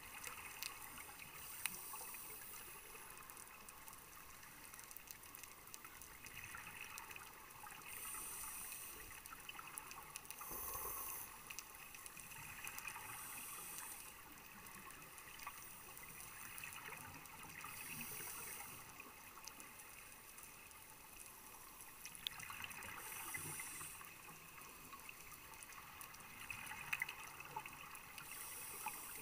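Underwater sound on a scuba dive: a diver's regulator exhaling bubbles in gushes every five seconds or so, over a quiet steady hiss with faint scattered clicks.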